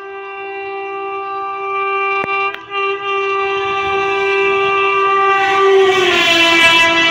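Indian Railways electric locomotive sounding a long, steady two-note horn as it approaches at speed, growing louder. The horn's pitch drops about six seconds in as the locomotive passes, and the rushing noise of the train running on the rails builds beneath it.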